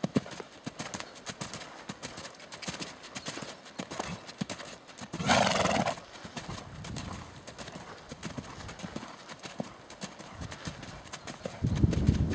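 A ridden horse's hooves beating steadily on sand arena footing as it moves around the ring. About five seconds in comes a loud, short rush of noise.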